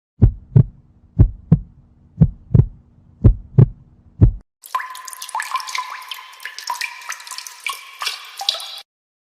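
Heartbeat sound effect: low double thumps about once a second over a faint hum, stopping about four seconds in. It is followed by about four seconds of a busy, crackling sound effect with a steady mid-pitched tone running through it.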